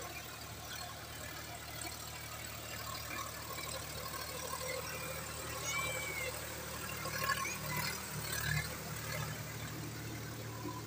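Sonalika DI 42 RX tractor's diesel engine running steadily as it pulls a rotavator through flooded paddy mud.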